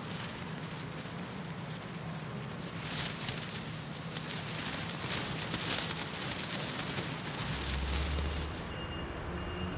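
Rain falling on a city street with traffic passing, an even hiss that swells louder in the middle, and a deep rumble about eight seconds in.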